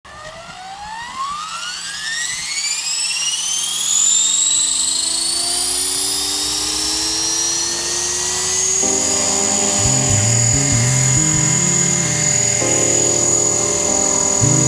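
Align T-Rex 500 electric RC helicopter spooling up on the ground: a rising whine from the motor and rotor that climbs steeply for about four seconds, then levels into a steady high whine at head speed. Background music with changing notes comes in about nine seconds in.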